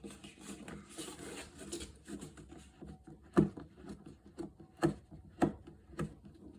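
Small parts handled while a nut is put onto the fuel-line fitting in a plastic diesel-heater fuel tank: rubbing and rustling, then four sharp clicks and knocks, the loudest about three and a half seconds in.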